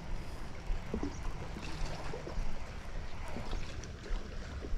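Water lapping and trickling against a fishing boat's hull in small, irregular splashes.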